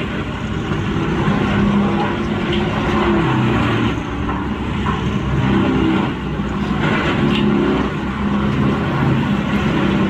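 Vermeer TG5000 tub grinder shredding logs: a heavy diesel engine running under load, its note rising and falling, over a continuous din of grinding and cracking wood.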